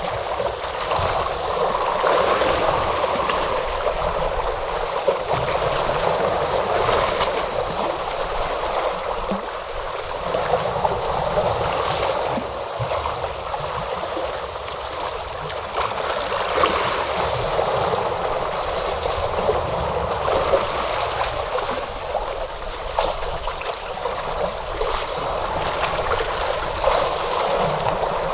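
Ocean waves washing in, a continuous rush of water that swells and eases every few seconds, with small splashes.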